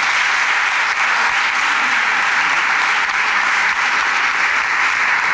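Audience applauding, a dense steady clapping that holds at one level throughout.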